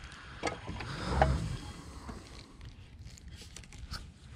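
Handling noises from a fishing boat: a dull knock on the boat about a second in, then a run of light clicks and ticks from a spinning rod and reel being readied for a cast.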